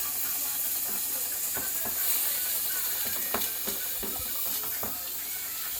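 Steam mop jetting steam with a steady high hiss, with scattered clicks and taps of the nozzle working against hard parts.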